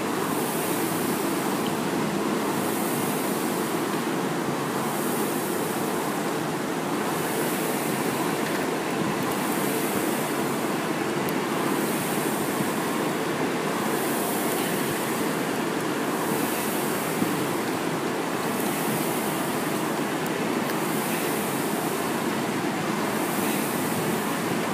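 Rowing machine's fan flywheel whirring, with a whoosh at every stroke, about one stroke every second and a half at a steady pace.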